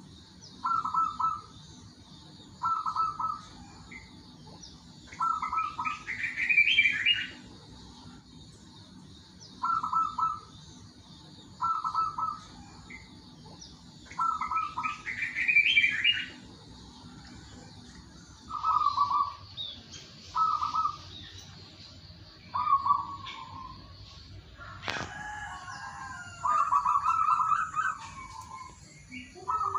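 Zebra dove (perkutut) cooing: short trilled phrases repeated about every two seconds, with a higher, brighter call twice among them. Faint high chirping runs underneath, and there is a single click near the end.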